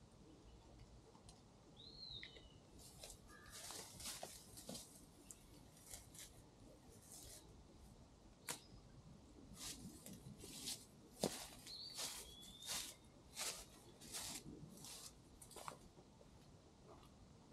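Faint, irregular rustling swishes, about one or two a second, with two short bird chirps.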